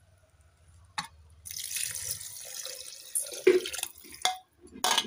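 Water poured into an aluminium pressure cooker onto fried moong dal and fish-head masala: a click about a second in, then the pour for about two seconds, then a few short knocks near the end.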